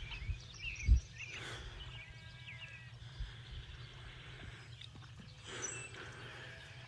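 Small birds chirping and twittering over a steady low outdoor rumble, with a sharp thump about a second in.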